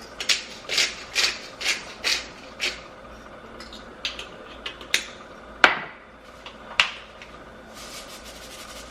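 Salt and pepper being put on eggs in a skillet: a run of sharp taps and clicks, about two a second, then a few scattered knocks.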